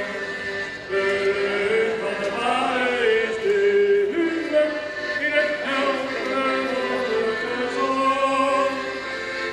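Accordion playing a folk tune, with a voice singing along.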